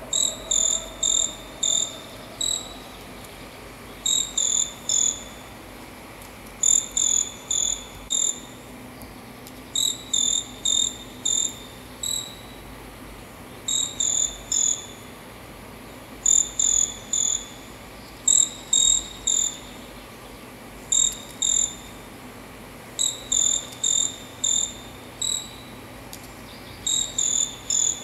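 Short-tailed pygmy-tyrant (caçula) calling: short, high, insect-like chirps in quick runs of two to five notes, repeated with brief pauses.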